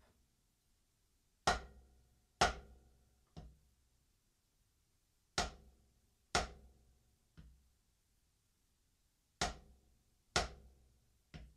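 Drumstick striking a practice pad in a repeating three-note pattern of full stroke, down stroke and tap: two loud accented hits followed by a soft tap, about a second apart. The pattern is played three times, roughly every four seconds.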